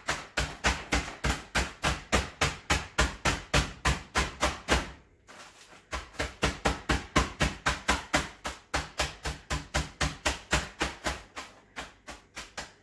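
Fists pounding Oreo cookies in a zip-top plastic bag on the counter to crush them: rapid thumps about four or five a second, with a brief pause about five seconds in.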